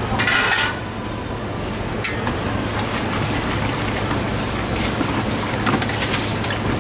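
Soy milk splashing from a ladle into a stainless stockpot of red yeast for about the first half-second. A paddle then stirs the mixture over a steady low rumbling background.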